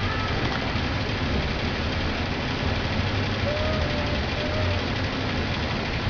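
A steady low mechanical hum under a constant hiss.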